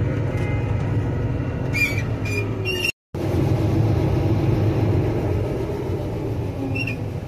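Combine harvester running steadily while picking corn, heard from inside the cab, with a few short high squeaks about two seconds in and again near the end. The sound cuts out completely for a split second about three seconds in.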